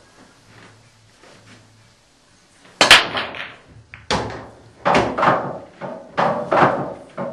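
Nine-ball break shot: the cue ball cracks sharply into the rack about three seconds in, and the balls clatter apart. Over the next few seconds a string of loud knocks follows as the scattered balls strike each other and the cushions.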